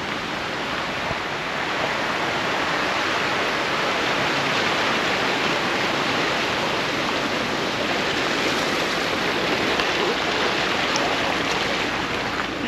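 Car driving on an unsealed dirt road: a steady rush of tyre and gravel noise.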